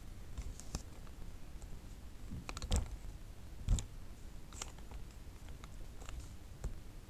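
Scattered light clicks and knocks from a camera being handled, a few seconds apart, the loudest ones about two and a half to four seconds in.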